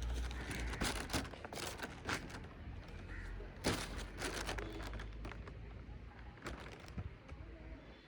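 Wind buffeting the microphone as a low rumble, with irregular sharp crackles and taps, the loudest a little past a third of the way in.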